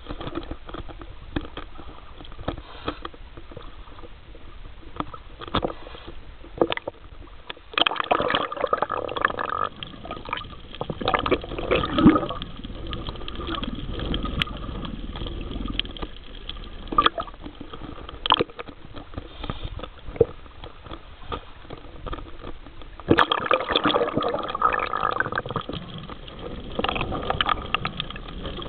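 Water sloshing and gurgling around a camera held underwater, with scattered knocks and clicks; it gets louder about 8 seconds in and again about 23 seconds in.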